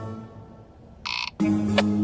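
Cartoon soundtrack: the background music fades out, a short, bright sound effect comes about a second in, and a steady low tone sets in just after, with a brief click.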